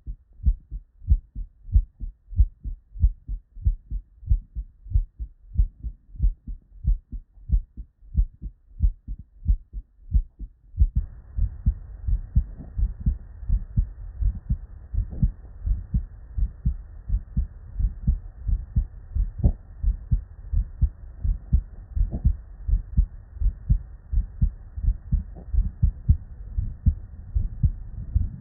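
Normal human heart sounds heard through a stethoscope: a steady lub-dub rhythm of paired S1 and S2 thumps. About 11 seconds in the recording changes, and a steady hiss sits behind the beats from then on.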